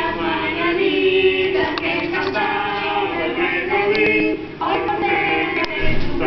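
Several voices singing together over music, heard through a television's speaker.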